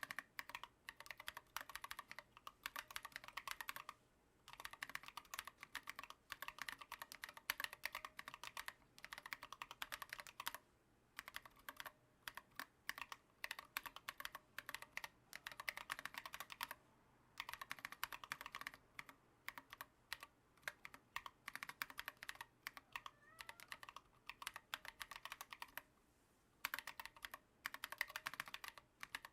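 Steady typing on a mechanical keyboard with Holy Panda V2 tactile switches, lubed, and SA keycaps: a quick run of clacks, stopping briefly three or four times.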